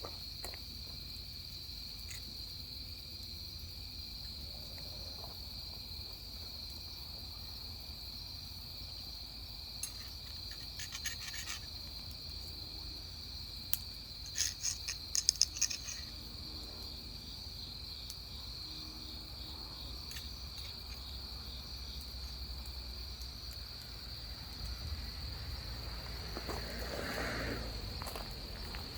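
Crickets chirping as a steady high-pitched drone, with a few sharp clicks and knocks about ten and fifteen seconds in.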